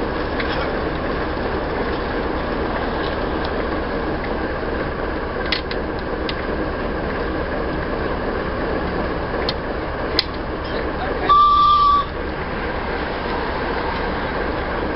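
Miniature 7¼-inch gauge steam locomotive giving one short whistle blast, a single steady high note lasting under a second about eleven seconds in, over a steady hiss with a few light metallic clicks.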